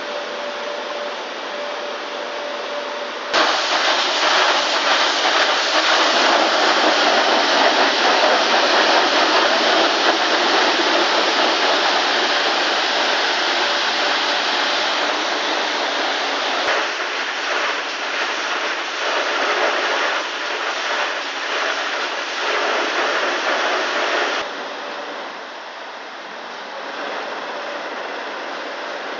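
Total Wash rollover car wash gantry working over a van: water spray and rotating brushes make a dense, steady hiss. At first a faint steady hum runs under the hiss. About three seconds in the washing turns suddenly much louder, then falls back a few seconds before the end.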